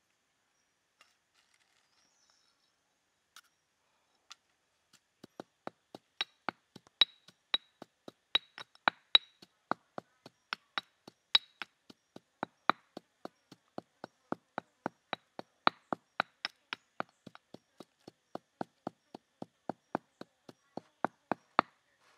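Stone pestle pounding chili flakes and salt in a mortar: a steady run of sharp knocks, about two to three a second, starting about five seconds in after a few faint clicks.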